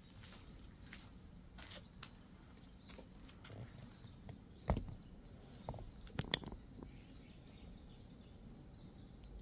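Quiet outdoor ambience with a low rumble and a faint steady high tone, broken by scattered clicks and knocks: a thump about five seconds in and a few sharp clicks just after six seconds.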